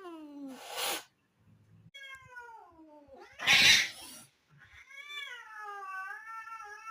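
Angry cat yowling, its long drawn-out calls sliding down in pitch, broken twice by sharp hisses. The second hiss, about three and a half seconds in, is the loudest, and the last yowl starts soon after it and runs on.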